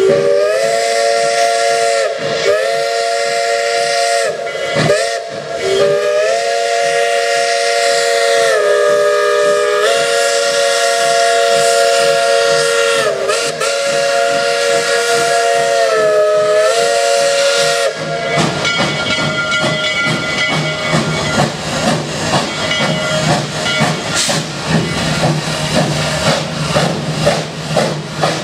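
1942 H.K. Porter 0-4-0 steam locomotive sounding its chime whistle, several tones at once, in a long blast of about eighteen seconds. The pitch sags and rises as the valve is worked, with a few brief dips. Then the whistle stops and the exhaust chuffs in a steady rhythm over hissing steam as the engine pulls forward.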